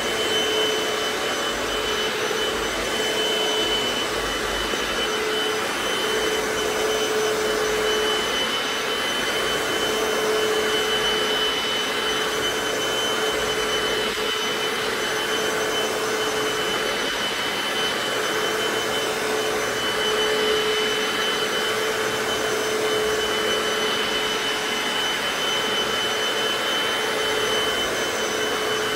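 Hoover FloorMate wet hard-floor cleaner running steadily as it is pushed over a hardwood floor: a continuous motor-and-suction rush with a steady high whine.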